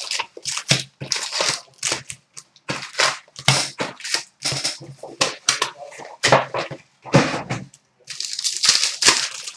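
Foil wrappers of hockey trading-card packs being torn open and crinkled by hand: a dense run of irregular crackling tears and rustles.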